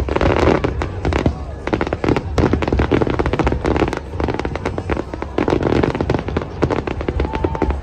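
Fireworks display barrage: many shells and low-level effects bursting in quick succession, a dense run of overlapping bangs and crackles over a continuous low rumble.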